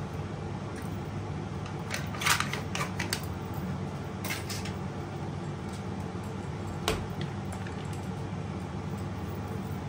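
A plastic cream cheese tub being opened and handled: a quick run of crinkly clicks about two seconds in, a shorter rustle about four seconds in, and one sharp knock near seven seconds as the tub or lid is set down on the wooden board. A steady low appliance hum runs underneath.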